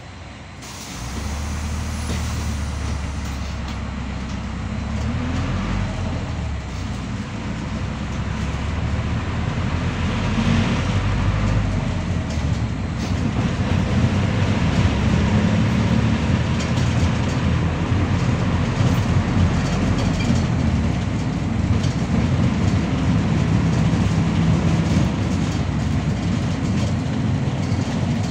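Bogdan A092 city bus pulling away from a stop, heard from inside: a brief hiss of air about a second in, then the diesel engine working up to speed with its drone climbing, and the bus running along the road with the body and seats rattling.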